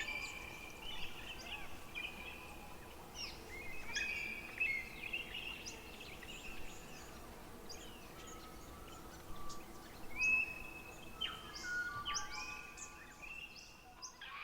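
Forest songbirds singing: clear whistled phrases and quick high chirps, overlapping throughout.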